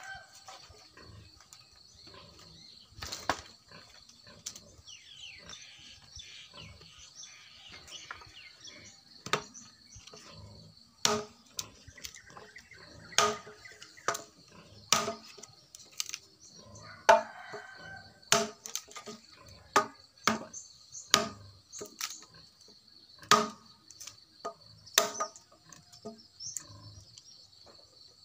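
Large chopping knife striking dry branches: a single knock early, then from about a third of the way in a run of sharp, irregular knocks, roughly one every second. A steady high insect drone runs underneath, and a rooster crows once near the middle.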